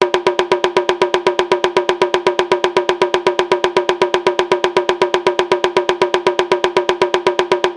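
Percussion struck in a fast, even pulse of about eight strokes a second, each stroke a sharp knock with a short pitched ring; it starts suddenly and keeps a steady tempo.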